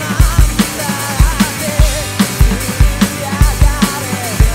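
Punk rock track with drums played along on a Roland V-Drums electronic kit: a fast, driving kick-and-snare beat under singing and guitars.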